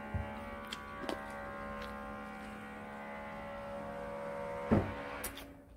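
A steady hum made of several even tones, with a few sharp clicks over it, the loudest about five seconds in. The hum cuts off abruptly right at the end.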